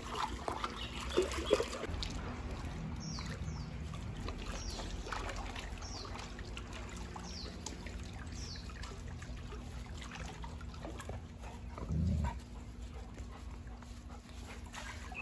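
A golden retriever and a brown-and-white puppy playing on grass, with dog sounds over the steady trickle of water from a garden pond. A few short high chirps sound in the middle, and there is a low thump near the end.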